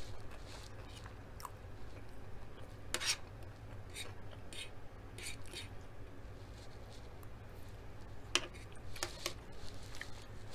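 Close-miked eating sounds: soft mouth and chewing noises with a few sharp clicks and scrapes of a metal spoon on the food tray, the loudest about three seconds in and again after eight seconds, over a low steady hum.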